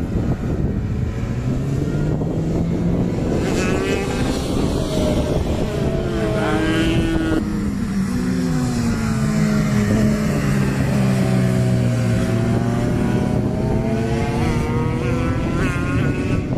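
Several racing motorcycles, Suzuki RGV250 two-strokes among them, running hard around a circuit, heard from trackside. Their engine notes overlap, climbing in pitch as they accelerate and sweeping down as they pass and brake.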